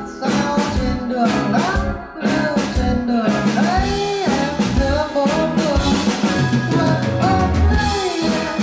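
A live band playing a song, with a man singing lead vocals into a microphone over a drum kit keeping a steady beat.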